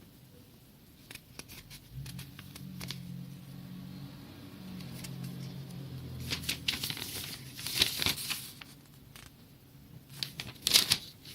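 Plastic packaging being crinkled and pulled apart while a scale is unpacked, in scattered rustles with louder bursts of crinkling in the second half. A low steady hum sounds in the first half.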